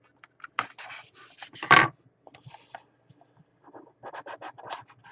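A blade slitting the seal on a small cardboard trading-card box, then the box being opened and handled: scattered scrapes and rustles, the loudest a short rasp a bit under two seconds in, with a quick run of small scrapes and taps near the end.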